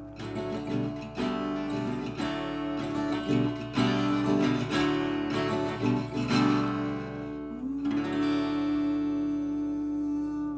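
Acoustic guitar strumming the closing bars of a country song, then a final chord left ringing that stops near the end.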